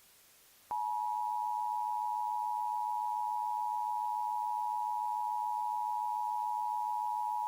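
Emergency Alert System attention signal: a steady two-tone electronic beep that starts abruptly under a second in and holds unbroken at one pitch. It announces that an emergency alert message is about to be read.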